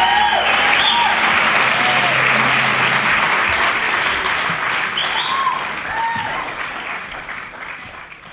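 Audience applauding and cheering, with short whoops rising and falling over the clapping. It dies away over the last few seconds.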